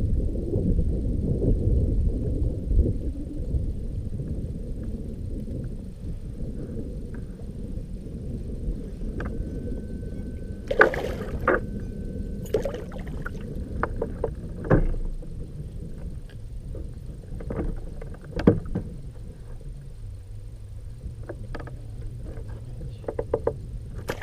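Wind and water noise around a small fishing boat, with scattered knocks and clicks of gear against the hull.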